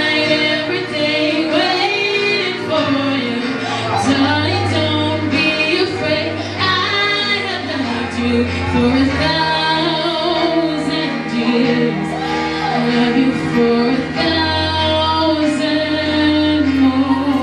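A woman singing a song solo into a handheld microphone over backing music, her voice sliding and holding notes.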